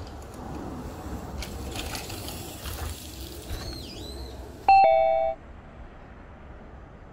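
A short two-note descending chime, like a doorbell ding-dong, sounds once about four and a half seconds in and is the loudest thing here. Before it there is steady outdoor trail noise.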